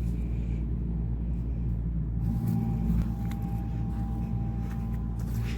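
Almond tree shaker's engine idling: a steady low drone. A faint thin whine joins in about two seconds in.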